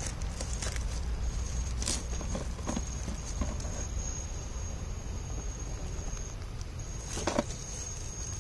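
A 1/10-scale RC rock crawler creeping over boulders, its tyres and chassis giving scattered clicks and knocks on the stone, with one louder knock about seven seconds in. Under it is a low steady rumble, and over it a steady high whine that cuts out briefly near the end.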